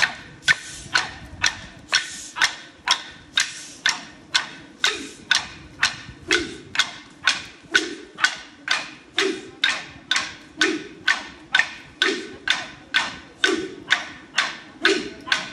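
Clapsticks struck in a steady beat, about two clicks a second. From about five seconds in, a lower thud joins roughly every second and a half.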